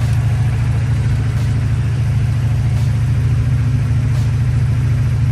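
A car engine idling steadily, most likely a running vehicle charging the Impala's dead battery, with a faint click repeating about every second and a half.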